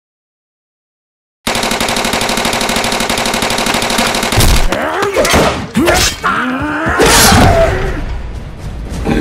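Stop-motion fight sound effects. After a second and a half of silence, rapid automatic gunfire starts suddenly. From about four seconds in come several heavy stabbing hits from metal claws, mixed with sliding, voice-like cries.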